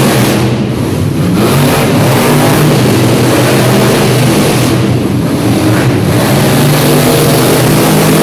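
Monster truck engines, supercharged V8s, revving hard and loud, the pitch rising and falling as the trucks accelerate and ease off across the arena floor.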